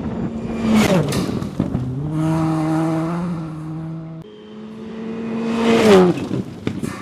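Rally cars passing at speed on a gravel stage, twice: about a second in and again near the end, each with its engine note dropping sharply as it goes by and a loud spray of gravel, then the engine running on at high revs as the car pulls away.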